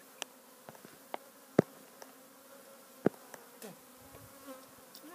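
Package honeybees buzzing as a steady hum, broken by a few sharp clicks, the loudest about a second and a half in and again at three seconds.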